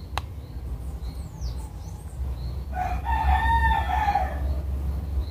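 A rooster crows once, a single drawn-out call of about a second and a half, starting near the middle. Faint bird chirps and a steady low rumble run underneath, and there is a sharp click just after the start.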